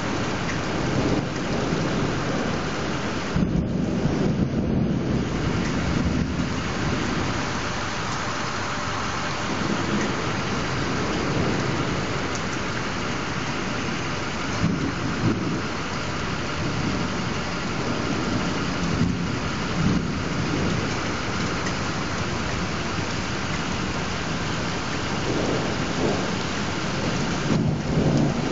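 Steady rain of a summer thunderstorm, with thunder rumbling low several times.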